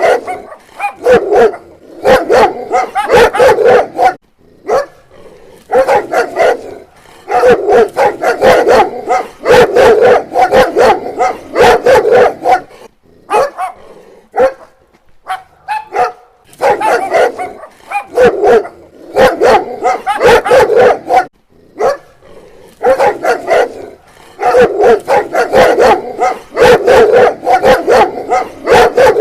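Dog barking in rapid, loud runs of barks, with short pauses of about a second between runs.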